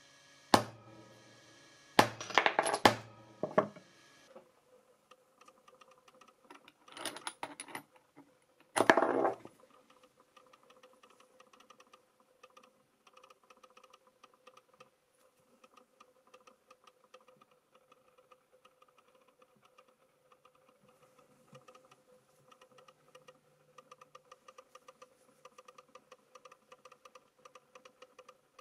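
Metal coins clinking and jingling against one another in several short clusters over the first ten seconds, followed by a faint steady hum with light rapid ticking.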